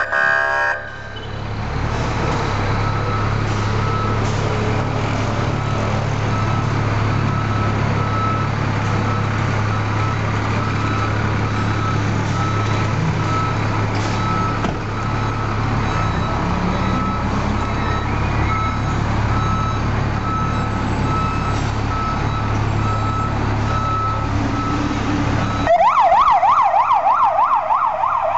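Ford F-350 fire truck's engine idling steadily, with a short high beep repeating about once a second. Near the end its Tomar 940 electronic siren starts in a loud, fast yelp as the truck pulls out. A brief burst of another fire truck's siren is heard at the very start.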